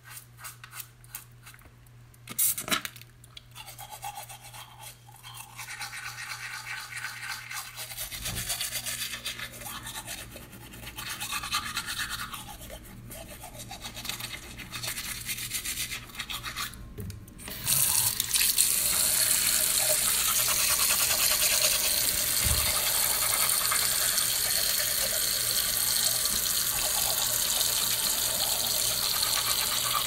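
Toothbrush scrubbing teeth in irregular scratchy strokes, with a sharp knock a couple of seconds in. A little past halfway a loud, steady rush of water takes over, like a tap running into a sink.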